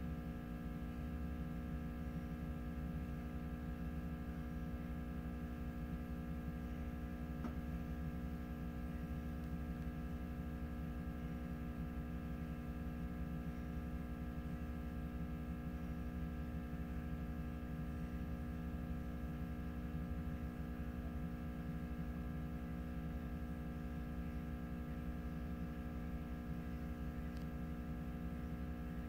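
Steady electrical hum made of several constant tones over a low rumble, holding unchanged, with one faint tick about seven seconds in.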